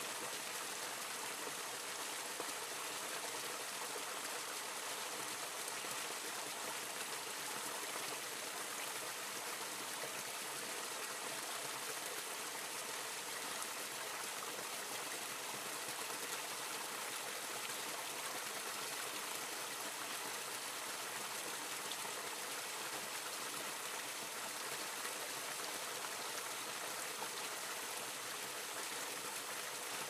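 A small mountain creek cascade pouring between rocks into a shallow pool: a steady splashing rush of falling water.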